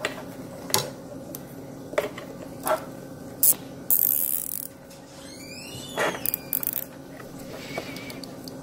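Plastic zip tie being pulled tight around a pump hose: a quick ratcheting zip about four seconds in and a short run of rapid clicks about six seconds in, among small clicks from handling plastic parts and wires.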